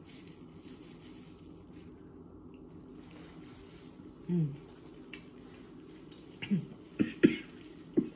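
Close-up mukbang eating: a woman biting and chewing crab leg meat. About four seconds in she gives a short hum, and in the last two seconds there are a few short, sharp coughs or throat sounds as the spicy seasoning catches the back of her throat.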